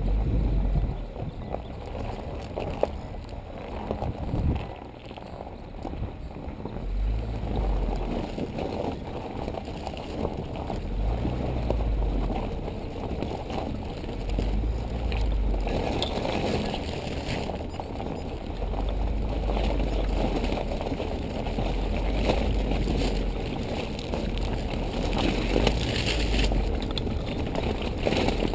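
Wind buffeting the microphone of a camera mounted on a vehicle, in irregular low thumps, over the rumble and rattle of the vehicle moving along a rough gravel track.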